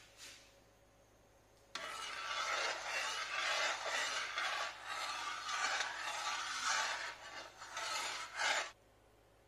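Potato pieces sizzling in hot cooking oil in a steel wok. The sizzle starts suddenly about two seconds in as they go into the oil, and stops abruptly near the end.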